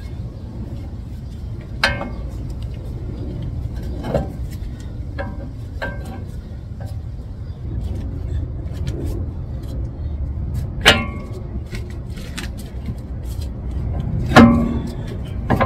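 Short metallic clanks and knocks, about half a dozen, the loudest near the end. They come as the steering knuckle and hub of a 2006 Honda Odyssey are worked by hand onto the splined end of the CV axle. A steady low rumble lies underneath.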